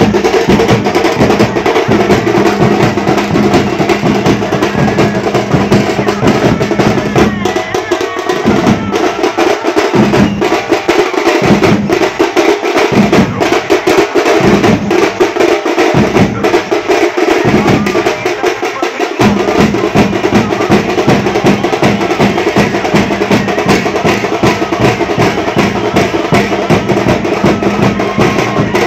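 Drum band of several large double-headed drums beaten with sticks in a fast, continuous rhythm. The deep low beats drop in and out through the middle, then come back in full.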